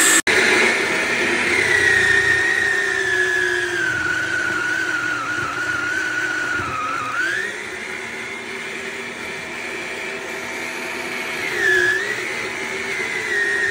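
Yonanas 988BK frozen-fruit soft-serve maker's motor running with a steady whine. Its pitch sags slowly as frozen fruit is pushed down the chute with the plunger and loads it, picks up again about halfway through, and dips briefly once more near the end.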